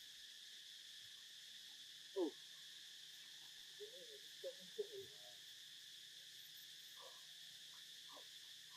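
Steady high-pitched insect chorus, with a few short animal calls over it: one falling call about two seconds in, a cluster of small chirps around the middle, and another near seven seconds.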